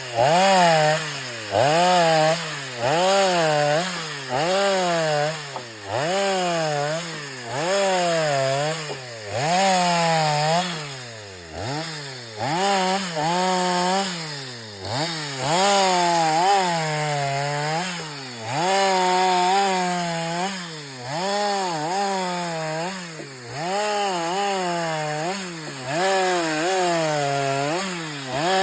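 STIHL MS 250 two-stroke chainsaw cutting firewood. Its engine pitch drops as the chain bites into the wood and climbs back when it eases off, over and over every second or two.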